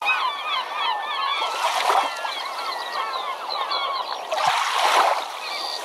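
A flock of birds calling over and over in many short rising and falling calls, with two louder rushes of noise, one about two seconds in and a longer one around four and a half to five seconds in.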